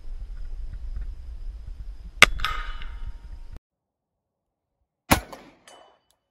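Handgun shot, followed about a quarter second later by a second report with a ringing tone, over wind rumble on the microphone. After a sudden cut to silence, another pistol shot comes about five seconds in, with a short echo.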